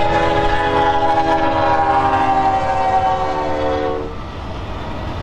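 Union Pacific freight locomotive's air horn sounding a long multi-note chord over the low rumble of the passing train. The chord dips slightly in pitch as the locomotive passes and fades near the end.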